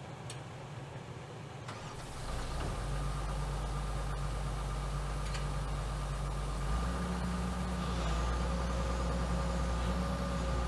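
Excavator diesel engine starting and running steadily, then stepping up in speed about seven seconds in.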